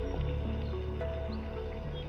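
Background music: a steady bass under a melody of held notes that change pitch every fraction of a second.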